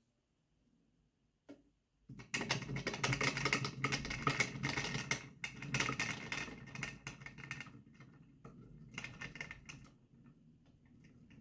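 Small soft gel balls pouring from a plastic jug into an empty plastic blender jar: a dense, rapid clatter of beads hitting and rolling against the plastic. It starts about two seconds in and thins out after about five seconds, then there is a second short pour near the end.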